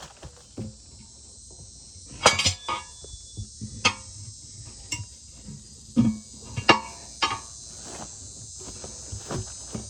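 Metal hand tools clanking, knocking and scraping against a tractor tire rim while the tire bead is levered on: irregular clinks and knocks, some ringing briefly, loudest at about two seconds in and again around six to seven seconds.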